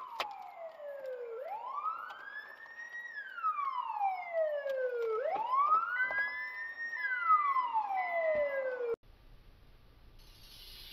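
Police car siren in a slow wail, its pitch rising and falling about every four seconds, cutting off suddenly near the end.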